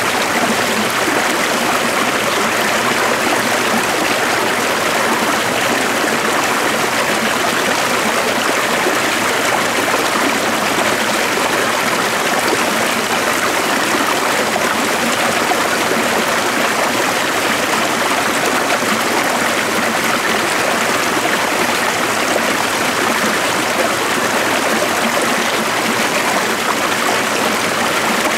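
A stream flowing steadily: an even, unbroken rush of water with little low rumble and no pauses or changes.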